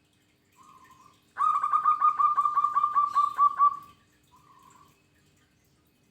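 Zebra dove (perkutut) singing: a short opening coo, then a fast run of about a dozen quick, evenly spaced cooing notes lasting two and a half seconds, and a short coo after it.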